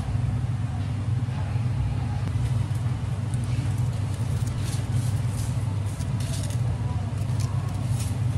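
Steady low hum of kitchen equipment, with light clicks and scrapes of a metal spatula spreading cream on a waffle, thickest in the middle.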